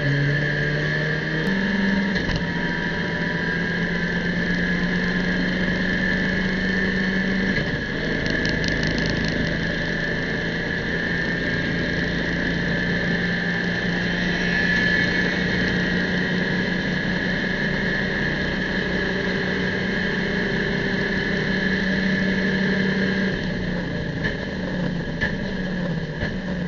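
Abarth race car's engine heard from inside the cockpit, running hard at high revs with a steady high whine above the engine note. It shifts up a couple of times early on and drops in pitch near the end as the car slows.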